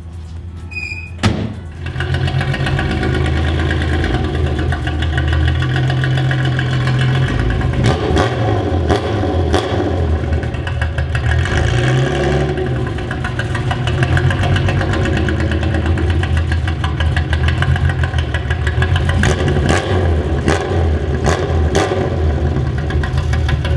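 A classic Nissan car engine starting about a second in, then running loudly with its speed rising and falling.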